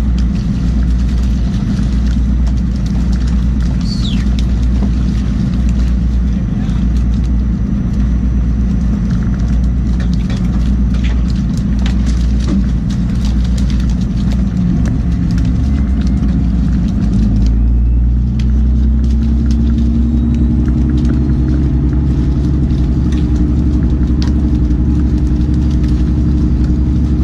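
A fishing boat's engine running steadily, loud and low, its note shifting to a different pitch about two-thirds of the way through, with scattered knocks and clatter on top.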